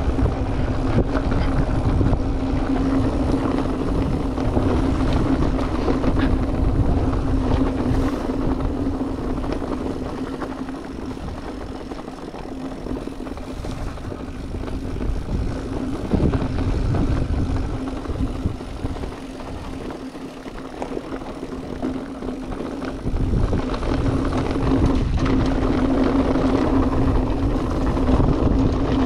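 Electric mountain bike riding a trail: the steady hum of its drive motor over rumble from wind on the microphone and tyres on the ground. The motor hum and the overall level drop in the middle, then come back for the last few seconds.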